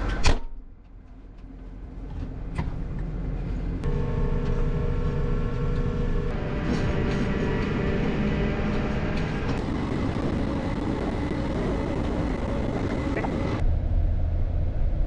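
A sharp knock right at the start, then a tractor engine running steadily, with a steady whining tone over it for several seconds in the middle.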